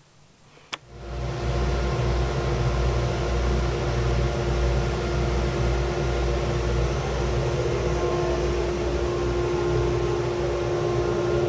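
ClearVue cyclone dust collector switched on with a click, its motor and impeller spinning up within about a second and then running steadily with a low rumble and a steady hum, heard from inside the shop.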